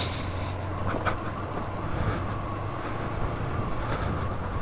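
2005 Kawasaki ER-5's 500 cc parallel-twin engine running steadily at low road speed, about 23 mph, with wind noise, heard through a microphone inside the rider's full-face helmet. A few faint clicks are heard over it.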